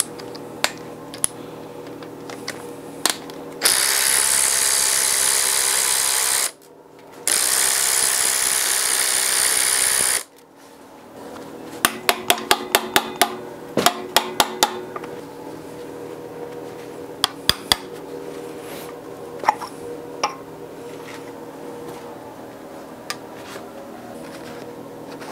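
A power tool spinning out the cam cover bolts in two runs of about three seconds each, with a short break between. A string of sharp metal clicks and taps follows as the cam cover is worked loose.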